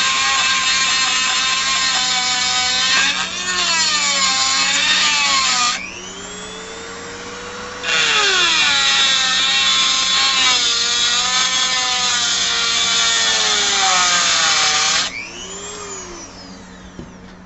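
A grinder cuts into the steel inner race of a Harley Dyna's front wheel bearing, grinding the stuck bearing apart so it can be knocked out. Its whine drops in pitch as the disc bites and climbs as it eases. It is let off about six seconds in and winds down, runs again about two seconds later, then winds down once more near the end.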